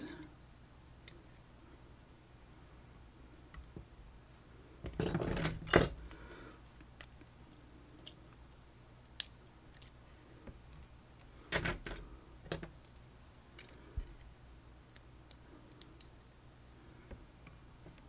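Small metal lock parts clinking and clicking as a Ruko Garant Plus lock cylinder is taken apart: scattered light ticks, with two louder clusters of clinks about five seconds in and again around twelve seconds.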